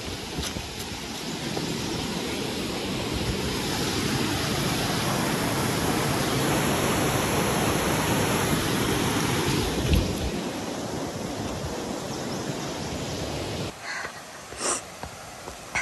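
Mountain stream rushing over boulders: a steady hiss that grows louder towards the middle, then drops away sharply near the end, where a couple of short sounds follow.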